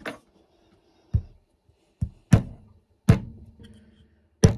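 A hammer strikes a 14 mm socket set over a brass air fitting, driving the fitting into an Air Lift 3P air-suspension valve manifold. There are about six sharp metallic knocks at uneven intervals, the later ones louder and each followed by a brief ringing.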